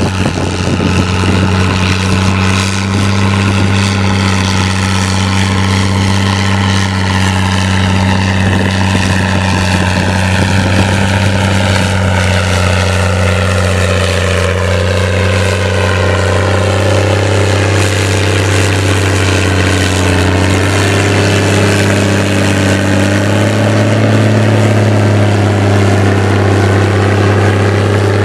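Case IH 1455 XL tractor's six-cylinder diesel running steady and loud through a straight stainless-steel exhaust, pulling hard with a subsoiler buried about 60 cm deep. It grows louder and shifts slightly in pitch about three-quarters of the way through as the tractor comes close.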